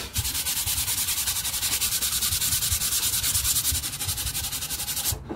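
Hand sanding with sandpaper on the painted edge of a wooden crate, in rapid, even back-and-forth strokes that stop just before the end. The sandpaper is scuffing through thick paint to bare the wood edges for a distressed vintage finish.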